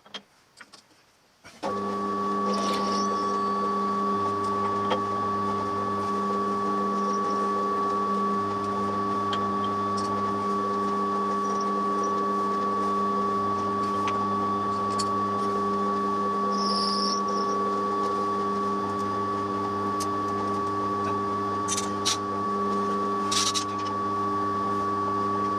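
A small machine tool's electric motor switches on about one and a half seconds in and runs with a steady hum, with a few light ticks and scratches over it.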